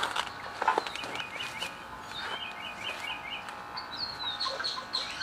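Small birds chirping in quick twittering runs of short notes, with a few light clicks and knocks near the start.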